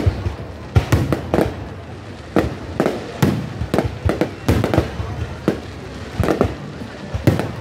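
Aerial fireworks display: shells launching and bursting in quick succession, an irregular run of sharp bangs several a second, each trailing off in a rumble.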